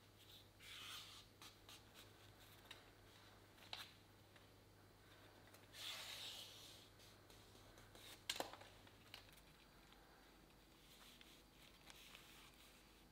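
Faint rubbing and rustling of thin birch bark strips being handled and drawn through the fingers, with two soft scraping swells, about a second in and about six seconds in, and a few light clicks, the sharpest about eight seconds in.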